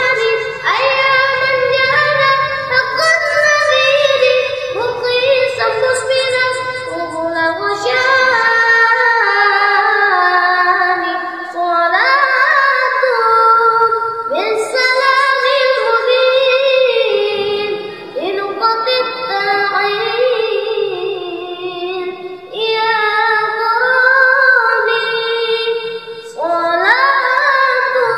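A young boy singing an Islamic sholawat in Arabic, with long held notes that bend and waver in ornamented runs.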